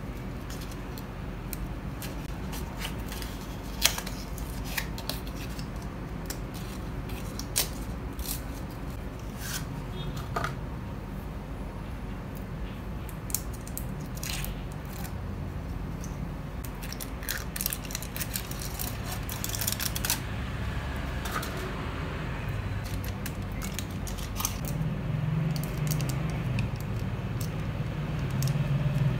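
Foil wrapper crinkling and tearing as it is peeled off a block of food by hand, with paper packaging rustling and many small sharp crackles and clicks scattered throughout.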